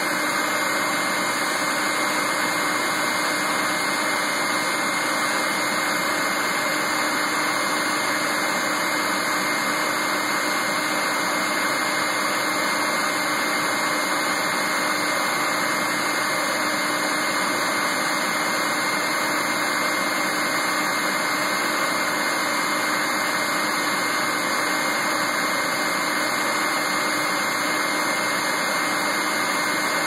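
Bee vacuum's motor running steadily while sucking a honeybee swarm off a tree branch: an even motor noise with a constant high whine.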